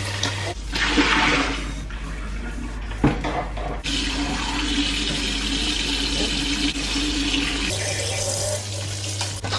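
Kitchen tap running steadily into the sink while hands are rinsed under the stream, with a single sharp knock about three seconds in.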